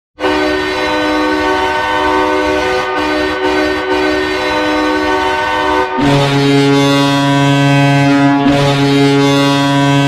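Bismarck Bobcats hockey goal horn blowing: one long, steady blast for about six seconds, then a lower, louder tone takes over about six seconds in and holds, with a brief break near the end.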